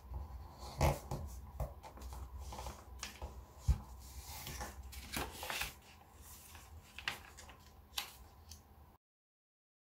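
A sheet of origami paper rustling and crinkling as it is handled, folded and creased by hand, with a few sharp crisp snaps as folds are pressed flat. The sound cuts off to dead silence near the end.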